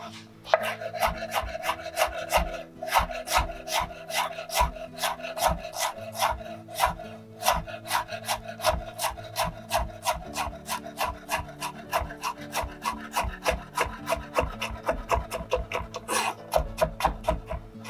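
Chef's knife dicing Armenian cucumber into small cubes on a wooden cutting board: a quick, even run of chops against the board, about four a second, stopping about a second before the end.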